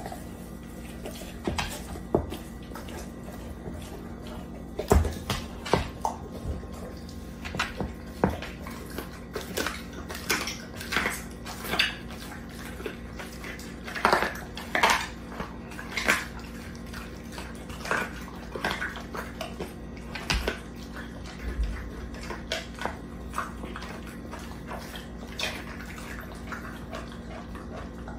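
A pit bull-type dog licking and gnawing at a whole raw chicken: irregular wet smacks and sharp clicks of tongue, teeth and jaws on raw meat and skin, coming thickest through the middle stretch.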